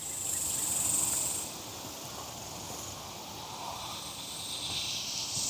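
Insects trilling outdoors: a steady, high-pitched whine that is strong for the first second and a half, fades, and rises again near the end.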